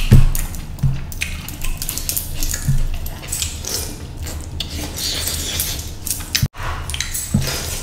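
Close-up eating by hand: fingers scraping and mixing rice and fish curry in a dish, with metal rings and bracelets clicking against it, and wet chewing. Many short sharp clicks and crackles over a steady low hum.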